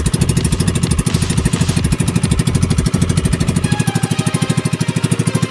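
Small engine of an outrigger fishing boat running at a steady speed, with a fast, even putter.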